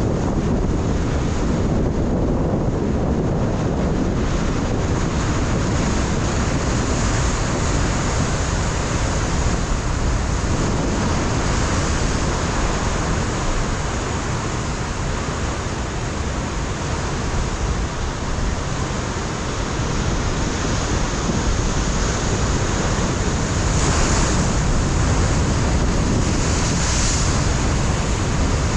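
Ocean surf breaking and washing against a rocky shoreline in continuous swells, with wind buffeting the microphone; the surf swells up twice near the end.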